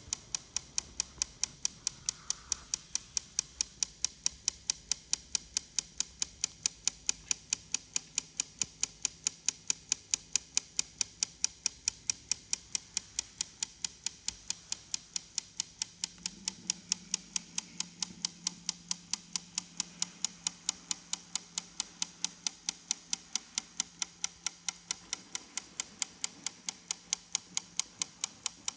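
Steady, even ticking, about three sharp ticks a second, with a faint low hum in the second half.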